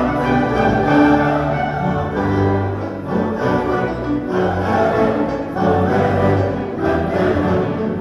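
A large choir singing with an orchestra, heard live from among the congregation.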